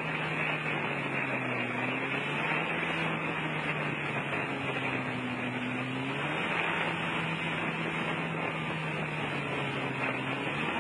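Towing watercraft's engine running at a steady speed, its drone dipping in pitch and picking back up a few times, over the constant hiss of spray and rushing water at the stern.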